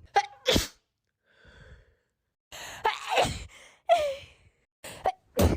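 A young woman's allergy sneezing fit: several sharp sneezes in quick succession, with short gasping in-breaths and voiced 'ah' cries between them.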